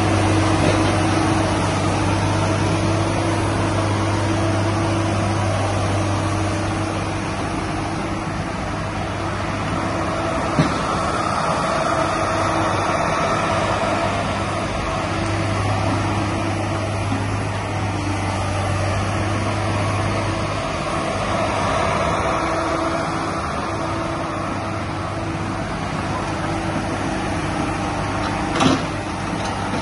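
Hydraulic excavator's diesel engine running steadily under work, its hum swelling slightly now and then. Two short knocks are heard, one about a third of the way in and one near the end.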